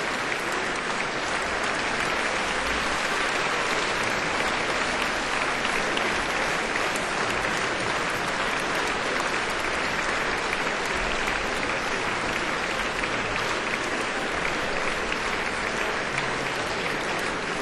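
Concert hall audience applauding steadily, a dense, even patter of many hands.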